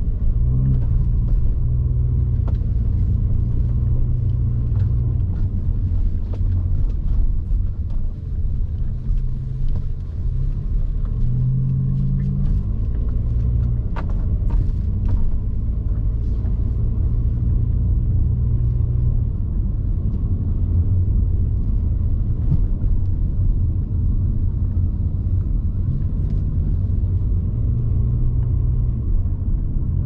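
Car driving, with a steady low rumble of engine and road noise from inside the cabin; the engine note shifts a few times.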